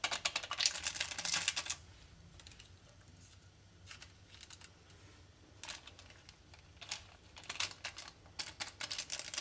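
Crinkling and rustling of the small foil-plastic Maggi tastemaker sachets being torn open and shaken out: a dense run of crackly clicks at first, then quieter, with scattered bursts of crinkling later.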